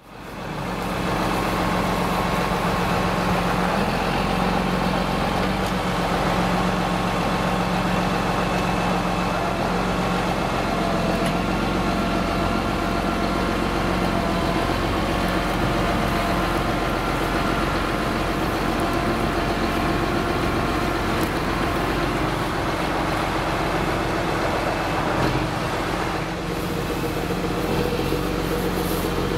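John Deere 8430 tractor's six-cylinder diesel engine running steadily. It fades in over the first second.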